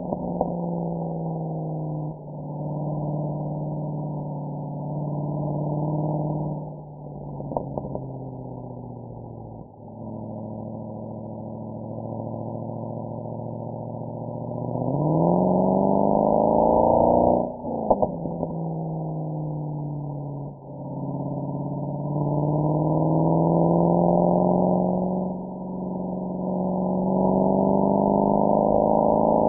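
Mercedes-AMG SL63's V8 exhaust under acceleration, the pitch climbing through each gear and dropping at the shifts, with a few sharp cracks at two of the shifts.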